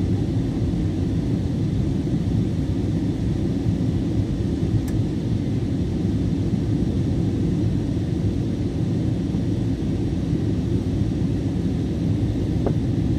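Steady low rumble of cabin noise inside an Airbus A320 airliner descending through cloud: the engines and the rush of air along the fuselage. A faint tick comes about five seconds in and another near the end.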